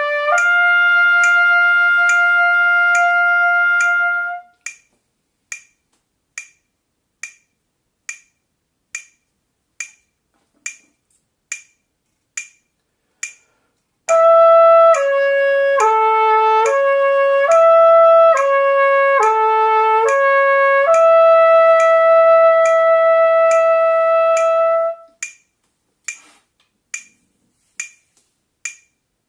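Trumpet playing a slurred lip-flexibility exercise across the third, fourth and fifth harmonics on the second valve, changing note once per metronome beat and ending on a long held note. A metronome clicks at 70 beats a minute throughout. It is heard alone for about ten seconds after a held trumpet note ends about four seconds in, and again near the end.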